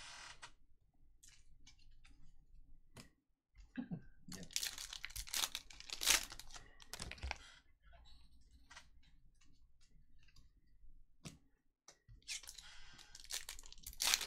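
Trading cards and foil card packs being handled on a table: scattered sharp clicks and taps with bursts of rustling, crinkling and tearing, busiest around the middle and again near the end.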